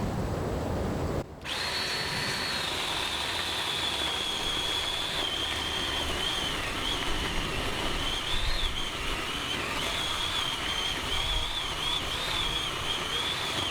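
Ryobi 18-volt cordless chainsaw running as it cuts into a tree stump: a high electric whine that wavers in pitch under load, the saw struggling. It drops out briefly about a second in, then picks up again.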